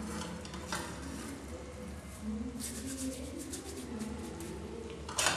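Faint rustling and scraping of dried oregano being crumbled between the hands over a metal pot, and a wooden spoon stirring a thick dried-potato stew.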